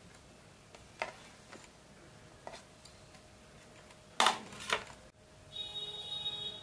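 Chopped onions scraped by hand off a ceramic plate into a metal bowl of mashed potato, with a few light taps and then two sharp clinks of the plate against the bowl a little past the middle. Near the end a brief high electronic ringing tone sounds, like a phone ringing.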